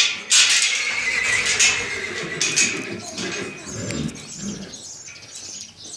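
A young john mule (mule foal) calling, a harsh whinny loudest in the first two seconds and tailing off over the next few.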